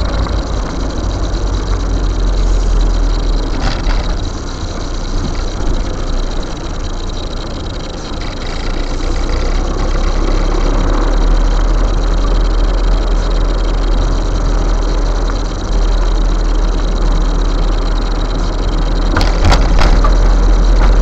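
Car engine and road noise heard from inside the cabin while driving, a steady low rumble, with a few sharp rattling clicks near the end.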